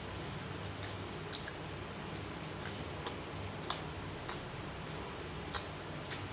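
Close-miked chewing: soft, wet mouth clicks and smacks come every half second or so, with a few sharper, louder ones in the second half.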